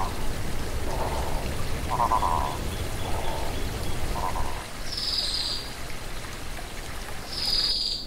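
Water trickling over rocks under a series of short, pulsed animal calls, one about every second, that stop about halfway through. Two short high-pitched calls follow in the second half, and the sound cuts off suddenly just before the end.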